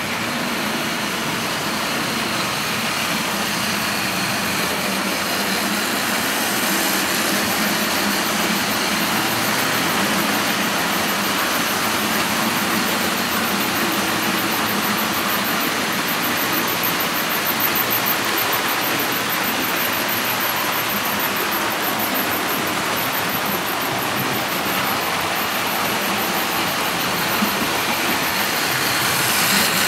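Hornby model trains running on the layout: a steady whir and rumble of model locomotive motors and wagon wheels on the track as a 9F hauls a long rake of mineral hoppers by, with a faint fast ticking through the middle. Near the end a second train passes on the near track.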